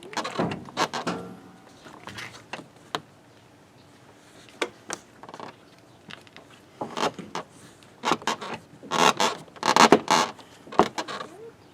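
Scraping, rustling and short clicks of door-panel parts being handled and fitted by hand. The loudest scrapes come near the end.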